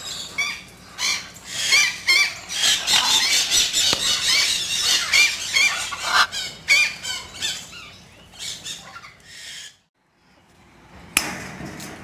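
Military macaws chattering in a rapid string of high squeals and short squawks that glide up and down in pitch. The calls cut off suddenly about ten seconds in.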